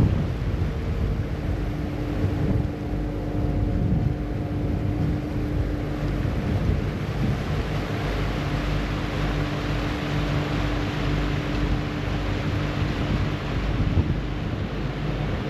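Passenger ferry's engine droning steadily with a held humming tone, mixed with the wash of its wake and wind buffeting the microphone.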